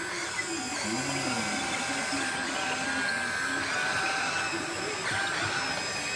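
Small electric motors of a remote-control toy excavator whining, their pitch stepping up and down as they work.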